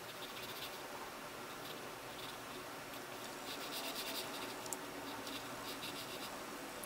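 Graphite pencil scratching across paper as it shades, in quick repeated strokes that are busiest around the middle.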